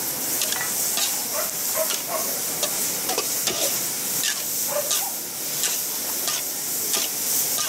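Buffalo meat and celery sizzling in a large steel wok as they are stir-fried, with two metal spatulas scraping and clinking against the pan many times at uneven intervals.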